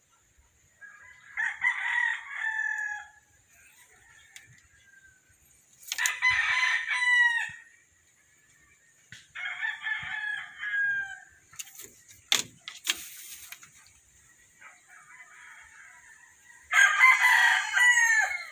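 A rooster crowing four times, each crow about one to two seconds long.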